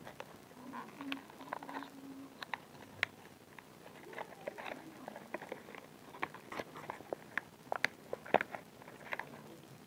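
Thin clear plastic packaging crinkling as it is handled and pulled open, a scatter of short, irregular crackles.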